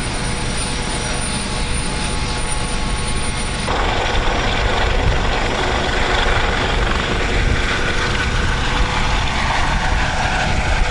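Rescue helicopter running on a carrier flight deck and taking off, a loud steady rotor and turbine noise. It grows louder from about four seconds in as the helicopter lifts off.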